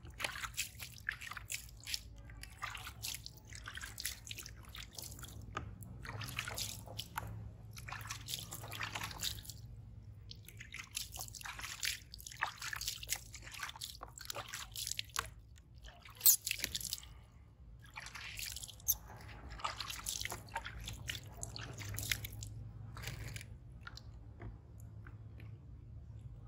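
Water splashing and dripping as a baby monkey is washed by hand: water scooped from a plastic basin, splashed and rubbed into wet fur, and running onto concrete, in irregular bursts. One sharper, louder hit comes about sixteen seconds in.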